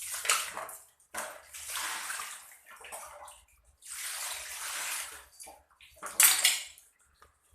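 Water splashing and sloshing in a basin in several irregular bursts as fish are cleaned by hand, the loudest splash about six seconds in.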